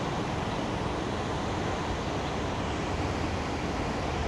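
Steady roar of Cumberland Falls, the large waterfall on the Cumberland River: an even rushing of falling water.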